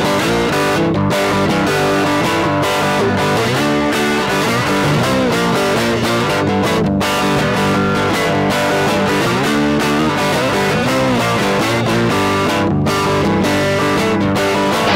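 Blues music with guitar, played steadily and loud throughout.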